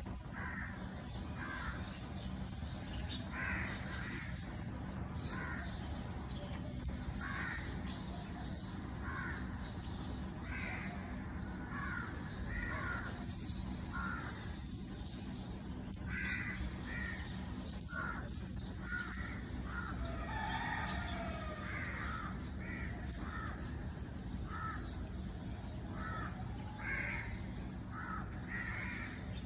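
Birds calling repeatedly outdoors, short calls coming about once a second, over a steady low rumble.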